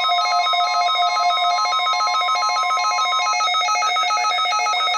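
Several NOAA weather radio receivers sounding their electronic alert beeps together for a Required Weekly Test, buzzy tones stepping back and forth between pitches in a fast, even pattern. Under them runs a steady single tone, the 1050 Hz weather radio alarm tone, which stops about three seconds in.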